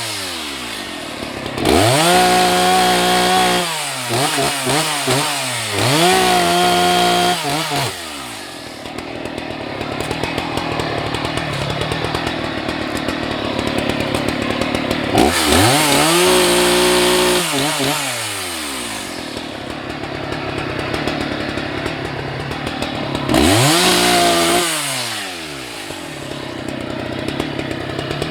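Husqvarna 181 SE two-stroke chainsaw revved up to full throttle several times. Each time it holds high for a few seconds, then drops back to idle, with a longer idle in the middle.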